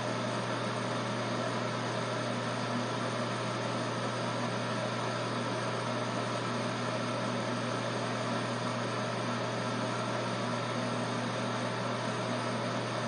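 Electric hair clippers running with a steady, even buzz.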